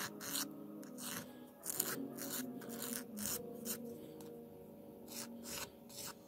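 A nail file rasping in quick, uneven strokes over clear press-on nail extensions, filing off the leftover bits of gel, over soft background music.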